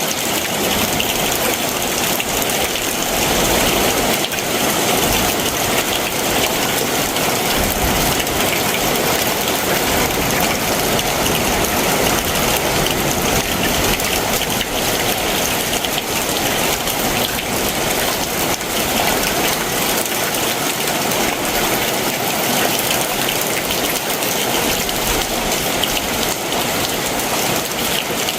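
Heavy summer monsoon downpour: steady, dense rain pattering on surfaces, with a faint low rumble at times underneath.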